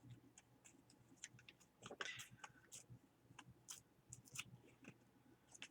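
Faint scattered clicks and paper rustles from handling paper cut-outs, with a slightly louder rustle about two seconds in.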